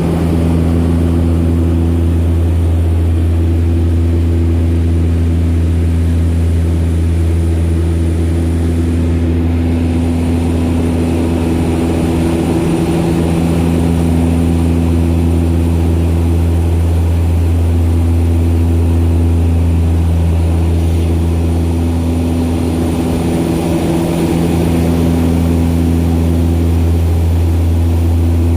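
Twin-engine propeller seaplane droning steadily at cruise: a DHC-6 Twin Otter's turboprops, a deep even hum with a few steady tones stacked above it.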